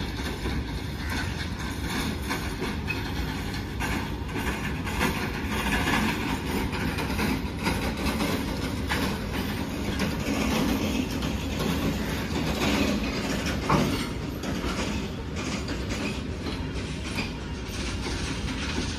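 Loaded SAIL BOBSNM1 freight wagons rolling steadily past, their wheels clacking over rail joints above a continuous rumble, with one louder knock about three-quarters of the way through.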